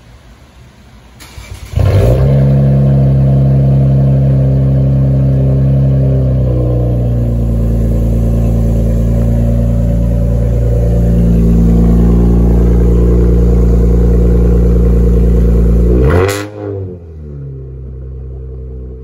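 Infiniti Q60 Red Sport's twin-turbo 3.0 V6 cold-starting through a muffler-delete exhaust with high-flow downpipes. The starter cranks briefly, the engine catches about two seconds in and holds a loud, steady cold-start high idle. Near the end there is a quick rev blip, after which it runs noticeably quieter.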